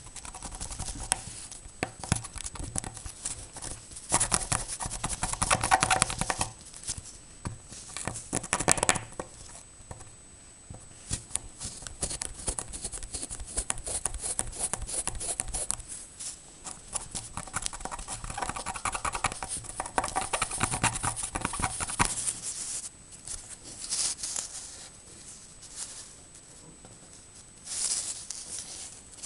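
Cotton swab scrubbing over the solder joints on the copper side of a perfboard, cleaning off flux residue: a dry, scratchy rubbing that comes and goes in bouts of a few seconds, loudest a few seconds in and again in the second half, with some handling of the board.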